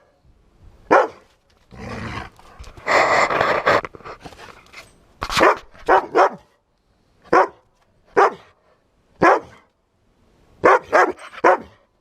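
A dog barking repeatedly in short single barks, some coming in quick runs of two or three, with a longer rough, noisy stretch about two to four seconds in.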